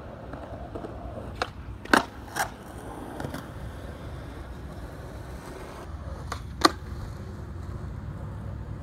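Skateboard wheels rolling on concrete, with several sharp clacks of the board striking the ground. The loudest clacks come about two seconds in and just before seven seconds.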